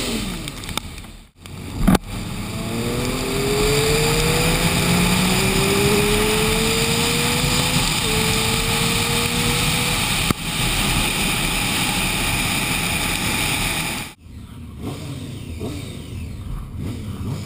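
Triumph Street Triple R's inline three-cylinder engine accelerating hard, its pitch rising, dropping at an upshift about eight seconds in, then climbing again. A steady rushing noise of wind and wet road runs under it. The sound cuts out abruptly about a second in and again about fourteen seconds in, and is quieter after the second cut.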